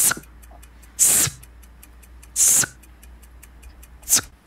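Four short rasping swishes about a second and a half apart, over a clock ticking faster than once a second.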